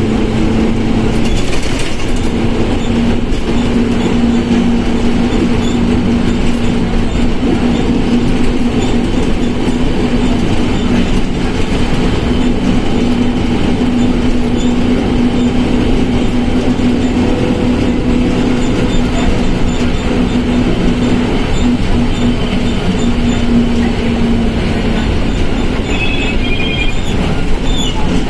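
Volkswagen Volksbus 17.230 OD bus under way: a loud, even drone of engine and road noise, with a steady hum from its growling transmission that drops away near the end.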